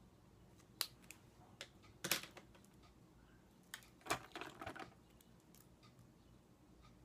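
Makeup items and cases being picked up and handled: a few sharp clicks and clatters, the loudest about two seconds in and a quick cluster of them around four seconds in.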